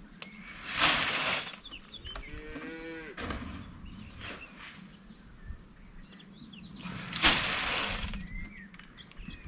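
One of the cattle moos once, a call of about a second that rises and then falls in pitch, around two seconds in. Two loud bursts of hiss, each about a second long, come near the start and again about seven seconds in, with small birds chirping faintly throughout.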